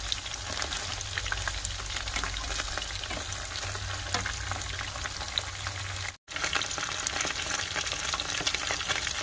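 Pieces of dried salted cá dứa catfish frying in hot oil in a pan: a steady sizzle full of small crackling pops. It breaks off for an instant about six seconds in.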